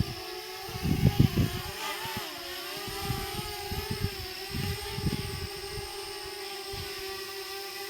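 DJI Mavic Mini drone's propellers whining as it hovers close by. The pitch dips and recovers about two seconds in as the drone adjusts. Low thumps come about a second in.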